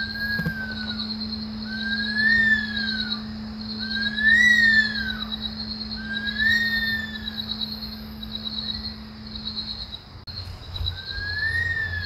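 Bush stone-curlews (Burhinus grallarius) giving their screaming wail: a series of drawn-out cries, each rising and then falling in pitch, about every two seconds. A pause of about four seconds comes before one more cry near the end.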